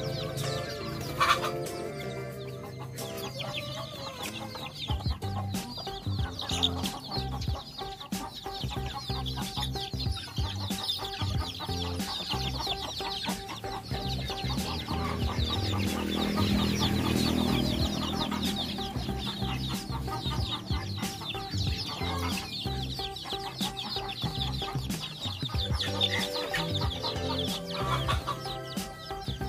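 Flock of six-week-old native chicks peeping and cheeping constantly, many high chirps overlapping, with background music underneath.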